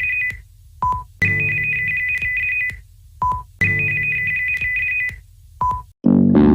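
Custom EAS-style electronic alarm tone: a high two-tone trill about a second and a half long, then a short lower beep, repeating about every two and a half seconds. Near the end it cuts off and guitar music starts.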